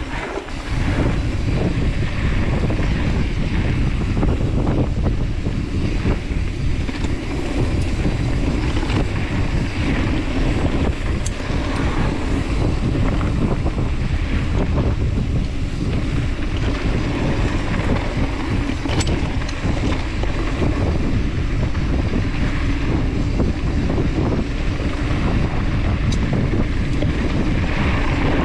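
Wind buffeting the microphone over the rumble of a mountain bike's tyres rolling fast on a dirt singletrack, with a few light clicks and rattles from the bike.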